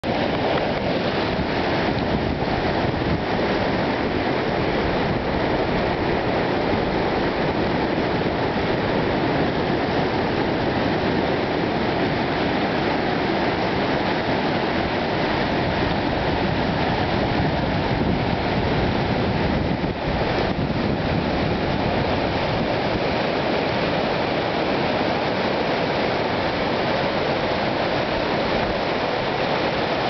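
Loud, steady rush of river rapids: whitewater pouring and churning over rock ledges.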